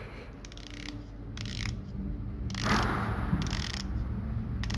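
Ratcheting clicks of a Chinese-made dive watch's unidirectional bezel being turned by hand, with a slight scrape. The clicking gets louder a little past halfway in.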